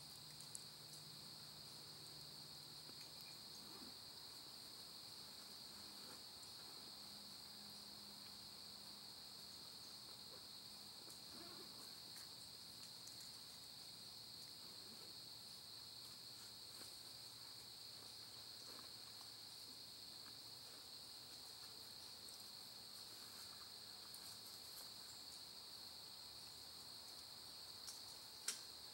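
Faint, steady high-pitched chorus of crickets, with a couple of short sharp knocks near the end.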